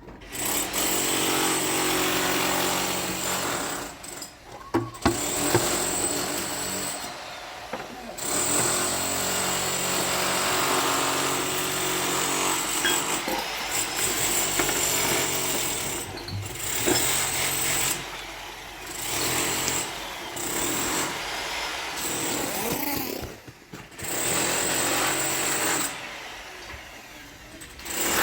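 A small motorised machine, like a power tool, runs in several bursts of a few seconds each, stopping and starting again.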